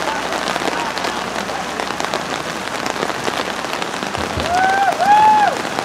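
Heavy rain falling steadily, a dense even hiss. Near the end, two short high calls of a shouting voice rise over it.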